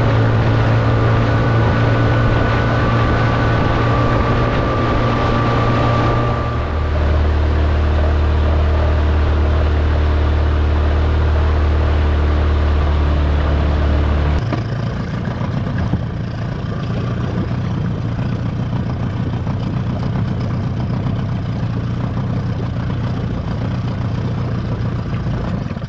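Yamaha outboard motor driving a small inflatable boat, running steadily, then throttled back to a lower note about six seconds in and eased down further, to a rougher low idle, about halfway through as the boat slows to come alongside.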